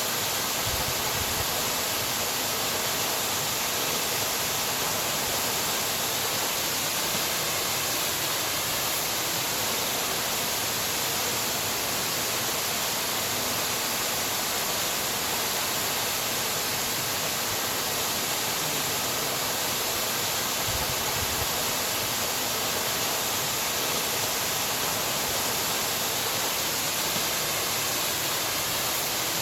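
Waterfall running steadily: an even, unbroken rush of falling water, strongest in the hiss, with a couple of faint low thumps.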